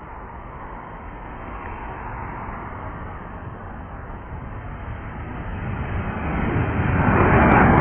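Jet engines of a Boeing 737 airliner at takeoff thrust: a distant, noisy rumble that swells steadily louder over the last few seconds as the jet lifts off and climbs.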